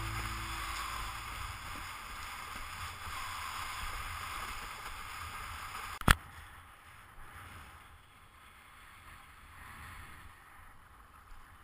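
Steady rushing and hissing of water and spray past a windsurf board under sail. About six seconds in a single sharp click stands out, and after it only faint water lapping remains.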